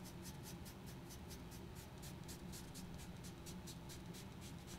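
Sponge applicator rubbing PanPastel into paper in quick back-and-forth strokes: a faint, even scrubbing at about five strokes a second.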